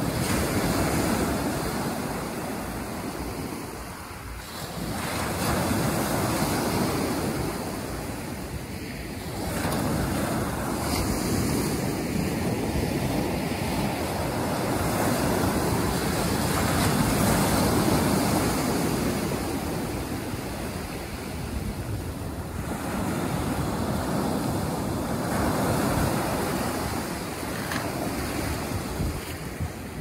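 Small sea waves breaking and washing up over a pebble beach. The surf swells and eases every few seconds.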